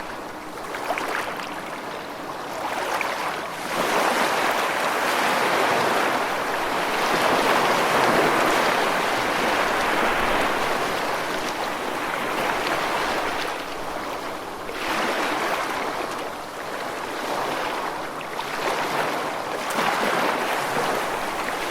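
Ocean surf: a steady rush of breaking waves that swells and eases, with louder surges every few seconds.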